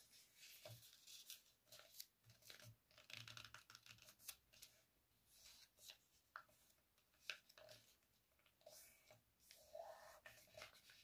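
Faint, irregular rustling and crackling of a sheet of A4 paper being folded by hand, its creases pressed flat with the fingers.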